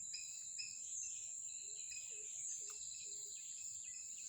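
Insects, crickets among them, keep up a steady high-pitched drone, with short bird chirps over it.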